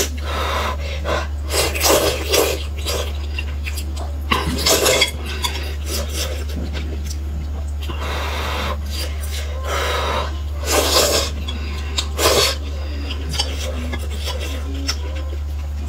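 Noodles in broth being slurped from chopsticks, about five loud slurps with short pauses between, over a steady low hum.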